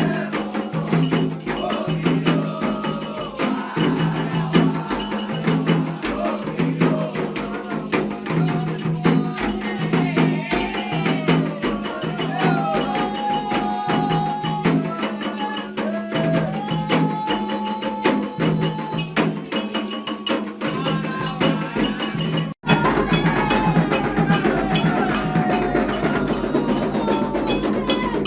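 Candomblé ritual music: atabaque hand drums and a struck bell keeping a steady, driving rhythm while voices sing a chant. The sound cuts out for an instant about two-thirds of the way through.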